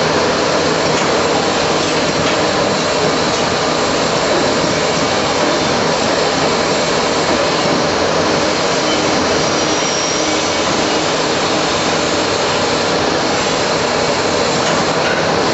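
Traub A25 automatic lathe running while machining valve guides: a steady, loud, dense machine noise with no distinct strokes or rhythm.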